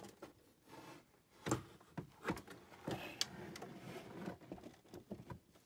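Apple IIe computer's plastic case being slid back into place across a desk: a run of scrapes, knocks and clicks, the loudest knock about a second and a half in.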